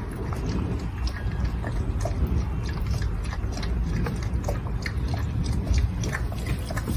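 An animal chewing and crunching close to the microphone: many irregular sharp clicks over a low rumble.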